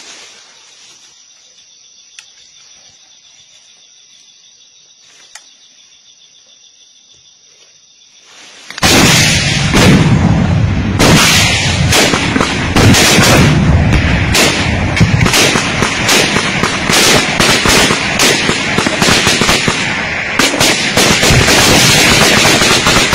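Insects hum steadily in the jungle for the first nine seconds. Then very loud, sustained gunfire suddenly breaks out, many shots in rapid succession with no let-up, as weapons fire close by.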